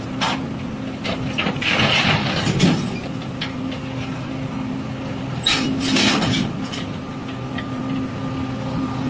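Excavator engine running steadily, with scattered knocks and clatter and two louder rushes of noise, about two seconds in and again around six seconds in, as rock or sand is scooped and dumped from a barge.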